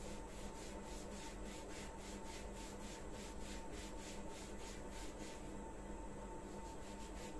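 A hand rubbing a cloth wax strip down onto a forearm coated with roll-on wax, pressing it into the wax before it is pulled. The strokes are quick and even, about four a second, and stop near the end.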